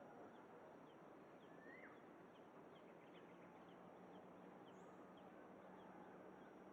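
Faint outdoor ambience with distant small birds chirping in short high notes, and one brief rising-then-falling whistled call about two seconds in. A faint steady hum joins about halfway through.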